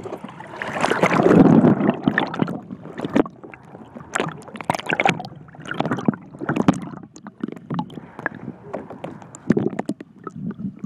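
Pool water splashing and sloshing around a camera held at and below the surface. There is a loud rush of splashing about a second in, then many sharp pops and clicks as the water moves over the microphone.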